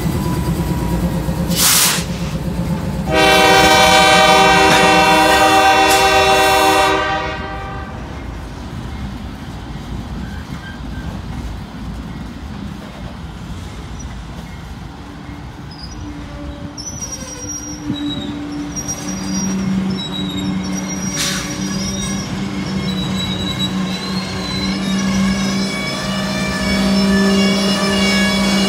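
Diesel freight train passing. The trailing locomotives rumble at first, then a locomotive horn sounds one long blast of about four seconds, the loudest sound here. After that the freight cars roll by with steady rail noise and high wheel squeal.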